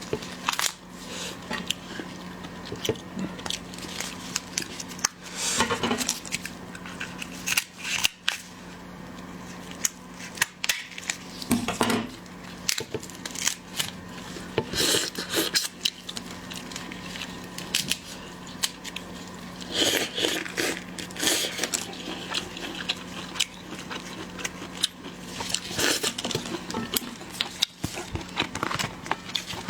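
Shells of cooked shrimp and lobster being cracked, cut and pulled apart, with sharp snips, crackles and clicks scattered throughout over a steady low hum.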